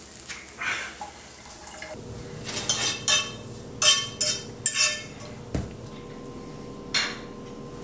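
A utensil scraping and clinking against a frying pan in a run of quick strokes as eggs are stirred, followed by a single dull thump and one last clink.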